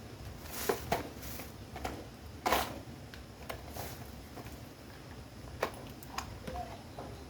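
Scattered handling noises: short clicks, knocks and brief scrapes, louder ones about two-thirds of a second, one second and two and a half seconds in, over a low steady hum.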